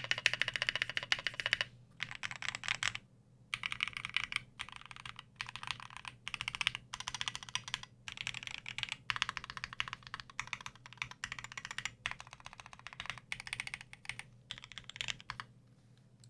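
Fast typing on a custom 60% mechanical keyboard: a Tofu60 aluminium case with an aluminium plate, lubed and filmed Durock L2 switches, pudding keycaps, EVA foam inside and a tape mod. Rapid keystrokes come in bursts separated by brief pauses, and the typing stops near the end.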